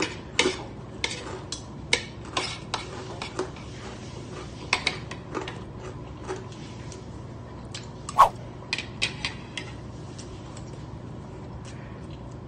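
Spoons and forks clinking and scraping on plates while eating: irregular sharp clinks, at times two or three a second, the loudest about eight seconds in, thinning out near the end.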